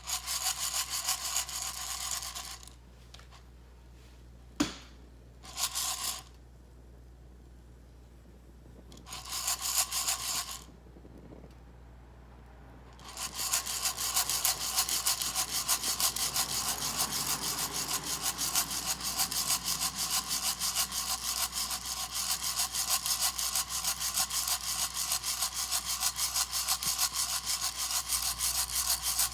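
Coffee beans rattling and rubbing inside an Iri-jouzu hand roaster as it is shaken back and forth during roasting. It starts with a few short bouts of shaking with pauses between them, then turns to steady quick shaking from about halfway in.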